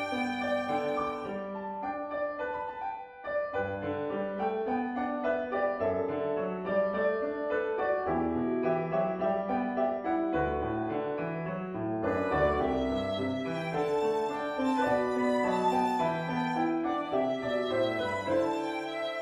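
Solo violin playing a melody over piano accompaniment, in a violin-and-piano arrangement.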